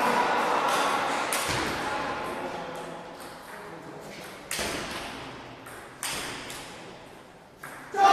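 Table tennis rally: the ball clicking off bats and table, echoing in a large hall, with sharper knocks about halfway through and again near the end.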